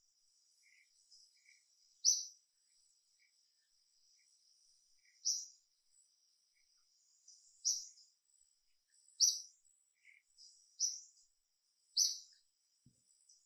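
Outdoor wildlife ambience: short high-pitched chirps repeat every one to three seconds, about six loud ones among fainter ones, over a faint steady high hiss.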